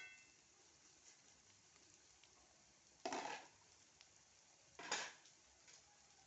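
Kitchen utensils clattering against cookware twice, a short scrape-like clatter about three seconds in and another about five seconds in.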